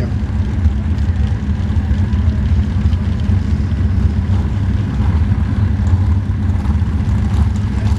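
Modified Chevrolet pickup pulling truck's engine running at a steady idle, a loud, low rumble, as the truck sits hooked up at the start of the pull.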